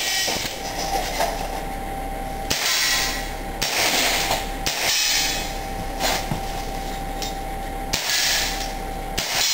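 Handgun shots on an indoor range, about a second apart: three in a row, then two more near the end, each followed by about a second of hiss.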